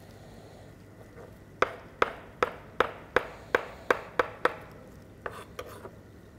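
Large kitchen knife chopping a bunch of fresh dill on a cutting board: about nine sharp, even chops, two or three a second, then a couple of lighter taps near the end.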